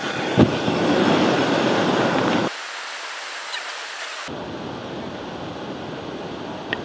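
A sealed can of peaches, heated over a propane burner, bursts with a sharp bang about half a second in, followed by about two seconds of loud rushing noise that cuts off abruptly. A quieter, steady rushing noise follows.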